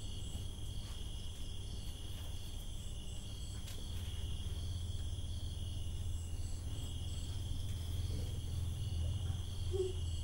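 Crickets and other night insects chirping in a steady, pulsing chorus, over a low steady hum.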